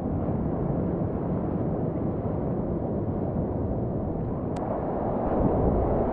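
Rushing river water, a steady dense noise, with a single sharp click about four and a half seconds in.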